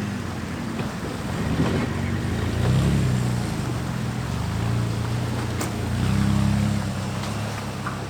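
Jeep Liberty's engine running under changing throttle while driving off-road, its hum swelling twice, with a rushing noise over it and a sharp click a little past halfway.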